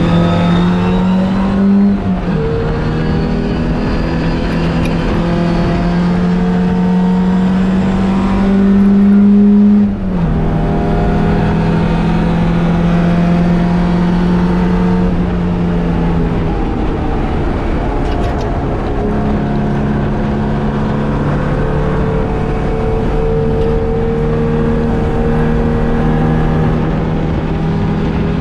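Onboard sound of an MGB racing car's four-cylinder B-series engine under full throttle, its note climbing steadily through the gears, with a sharp drop in pitch at an upshift about 2 seconds in and again about 10 seconds in. The note eases off briefly around 16 seconds in before it climbs again.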